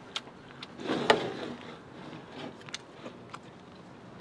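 Eating sounds: a few sharp clicks of chopsticks against the plate and serving tray, with a short louder scrape about a second in.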